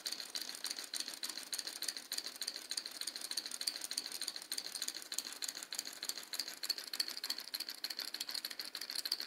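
Scratch-built two-cylinder 12-volt solenoid engine running steadily: a fast, even clicking rattle from the solenoids and valve gear.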